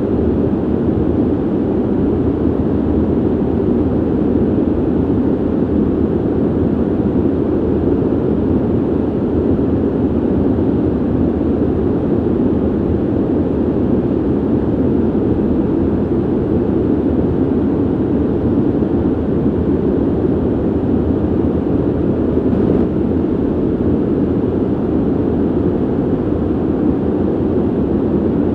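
Ventilation system running with a steady, deep rushing of air, its noise sitting low with little hiss.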